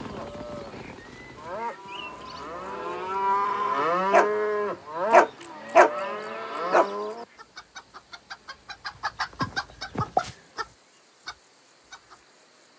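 Several cows mooing in overlapping, arching calls. About seven seconds in, the sound cuts off sharply and gives way to a quick run of short chicken clucks.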